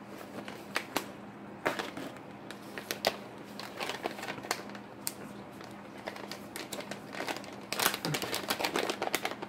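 Crinkling and clicking of a plastic cat-treat pouch being opened and handled, in scattered snaps with a denser run of crinkles near the end. A faint steady hum lies underneath.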